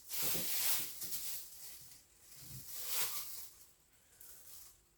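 Packaging being opened by hand, giving rustling and crinkling noise: a stretch of about a second, a shorter one, and another around three seconds in.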